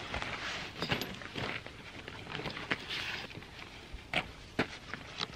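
Hiking backpack rustling as it is swung onto the back and its straps pulled and fastened, with scattered sharp clicks and knocks from the strap buckles.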